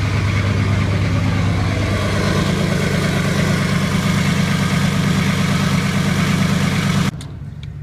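Pickup truck engine idling steadily on its cold-engine high idle, heard close to the tailpipe; the engine has not yet warmed up. The sound cuts off abruptly about seven seconds in.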